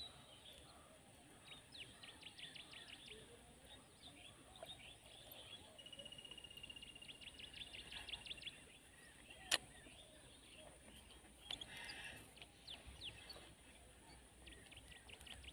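Faint birdsong: quick runs of high chirps, with a held rapid trill from about six to eight and a half seconds in. A single sharp click about nine and a half seconds in.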